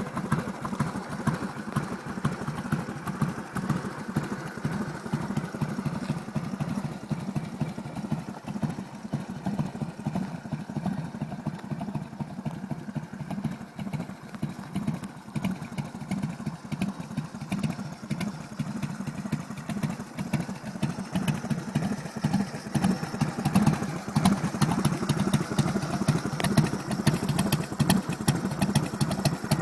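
Harley-Davidson motorcycle's V-twin engine idling with an even, pulsing beat, growing a little louder over the last few seconds.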